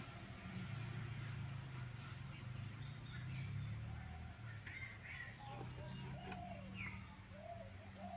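Birds calling faintly, a few short chirps and calls from about halfway through, over a steady low hum.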